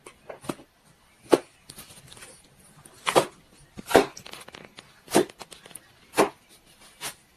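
An uneven series of about six sharp knocks, roughly a second apart, with quiet room tone between them.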